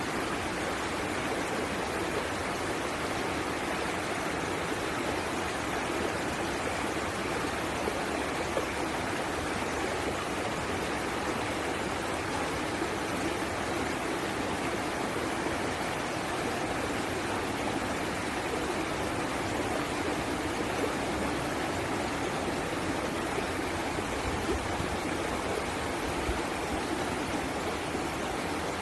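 Flowing water in a stream or small waterfall, a steady even rushing with no breaks.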